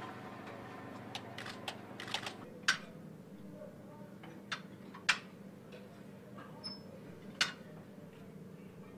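Scattered sharp clicks and taps, a dozen or so at uneven intervals, from a maintainer crawling and working inside an F-16's air intake duct, over a steady low hum.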